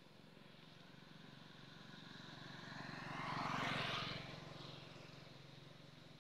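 A motor vehicle passing by on the road: it grows louder over a few seconds, is loudest a little past the middle, then fades away as it goes.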